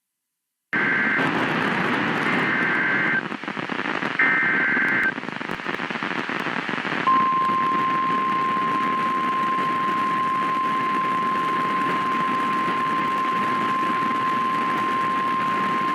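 NOAA Weather Radio receiver with steady static hiss, sending three short digital SAME header bursts (warbling two-tone data chirps), then a single steady alert tone starting about seven seconds in. This is the Emergency Alert System attention signal that opens a new warning broadcast.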